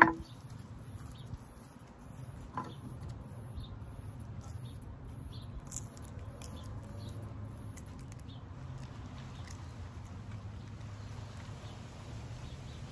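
A sharp knock of a kitchen knife set down on a wooden cutting board, then a second lighter knock a couple of seconds later and faint handling of an avocado being twisted apart, with small scattered clicks over a steady low outdoor background.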